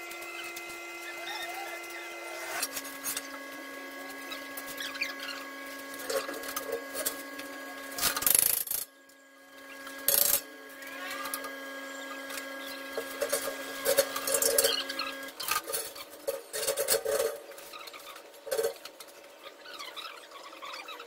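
Knocks, clanks and scrapes from steel beams being handled and fitted, with a steady held drone of several tones that shifts down once about two and a half seconds in and stops about two-thirds of the way through.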